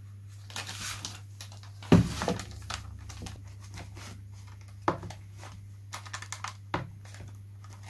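Iron-on plastic covering film (Oracover) crinkling and rustling as it is handled and ironed onto a balsa wing, with a few sharp knocks, the loudest about two seconds in. A steady low hum runs underneath.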